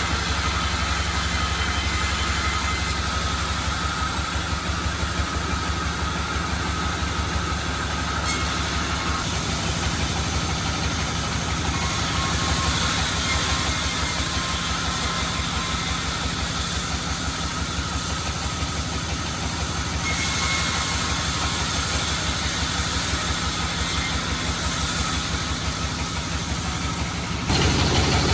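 Sawmill engine driving a band saw, running steadily with a fast, even beat low down and a steady hiss over it as teak is sawn. It gets louder near the end.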